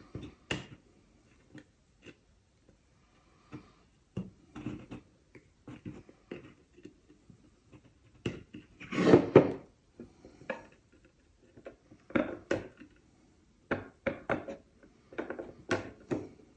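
Small hand tools working on a metal detector's plastic control housing: scattered clicks, scrapes and knocks as a needle and pliers dig worn rubber washers out of the knob seals, with a louder clattering handling noise about nine seconds in.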